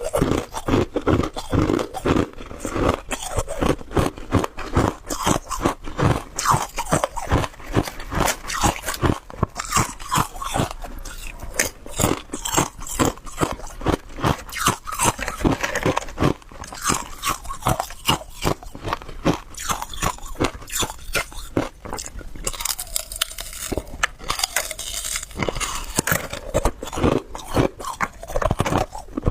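Hard ice being bitten and chewed close to the microphone: a dense, continuous run of sharp, crisp crunches.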